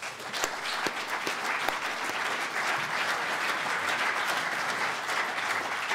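Audience applauding: many hands clapping together in a steady, dense patter that starts right away and holds throughout.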